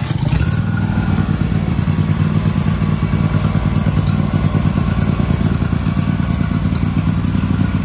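Honda GX620 20 hp V-twin engine running steadily at an even speed.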